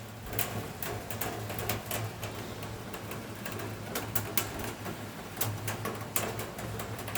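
Raindrops striking a surface in irregular sharp ticks, over a steady low hum.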